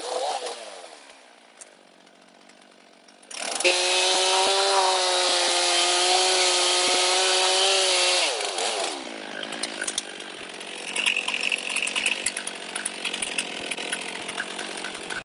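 Stihl chainsaw cutting a red oak log. It winds down to a quiet idle at the start, revs to full throttle about three and a half seconds in for a cut of about five seconds, then drops back and runs low with scattered knocks.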